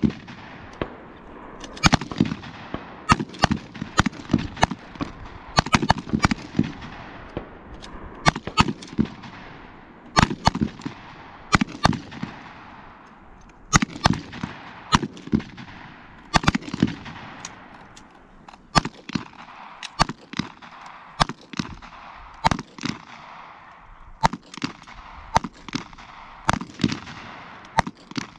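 Rifle and pistol fire from several shooters at once: sharp, irregular shots, sometimes several in quick succession and sometimes overlapping, each trailing off in echo.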